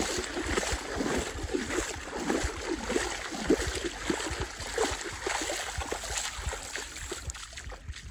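Wind rumbling and gusting on the phone microphone over water lapping at the edge of a shallow sandbar, an irregular unpitched noise with no other event standing out.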